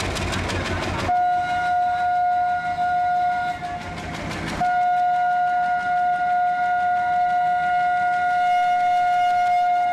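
Horn of an Indian Railways WDP-1 diesel locomotive sounding two long blasts on one steady note, the first about two seconds long and the second about six, with a short break between. The locomotive's diesel engine is heard clattering during the first second.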